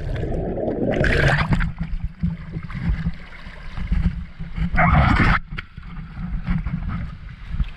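Outdoor water sound, rushing and splashing, with wind rumbling on the microphone; two louder noisy surges come about a second in and about five seconds in.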